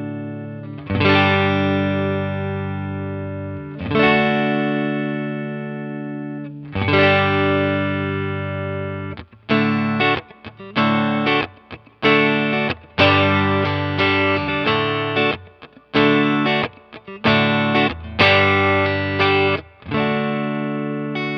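Electric guitar played through a Sound City SC20 valve combo amp, with two 6V6 power tubes and a 12-inch Fane speaker. Three full chords are struck about three seconds apart and left to ring and fade. From about nine seconds in it turns to a choppy rhythm of short chords cut off sharply between strokes.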